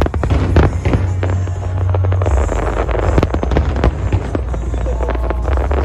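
Aerial fireworks bursting: many sharp bangs and crackles in quick succession, over loud show music with a heavy, steady bass.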